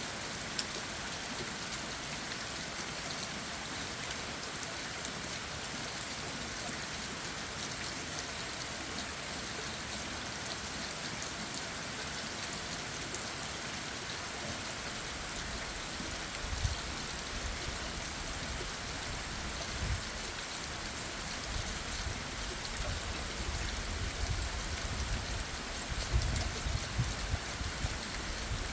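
Steady rain falling and pattering on leaves and ground, with low thumps becoming more frequent in the second half.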